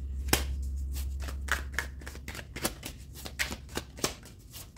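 A tarot deck being shuffled by hand: a quick, irregular run of soft card-on-card flicks and slaps.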